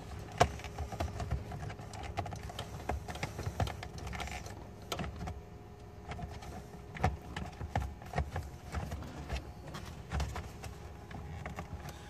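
Hands handling and prying at the plastic steering column cover, its trim and clips giving irregular clicks, taps and rattles, with a sharp click about half a second in.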